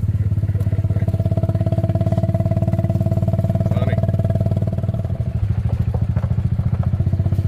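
A small engine running steadily with a fast, even pulse; its note changes slightly a little past halfway.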